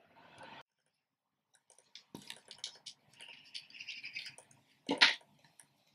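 Faint handling noises: scattered small clicks and rustles of hands working a plastic tube of food-grade lubricant against a stainless-steel ice-cream machine beater, with one short sharp noise about five seconds in.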